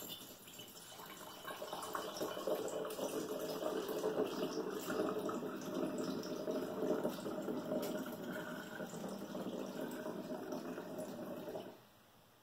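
Non-alcoholic mead pouring steadily from a glass jug through a funnel into a glass swing-top bottle as the bottle fills. The pour stops suddenly shortly before the end.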